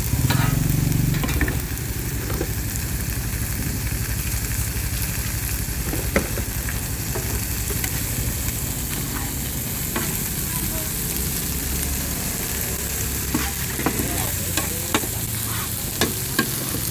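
Food stir-frying in a hot pan: a steady sizzle as beef and noodles are tossed and stirred, louder in the first second or so, with a few sharp clicks, most of them near the end.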